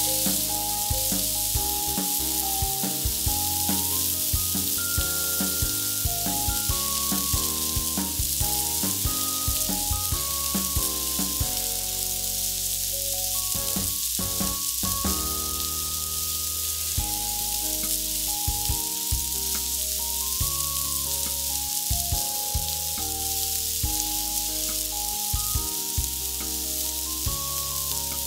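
Food frying in hot oil in a pan, sizzling steadily, with background music playing a melody over a bass line.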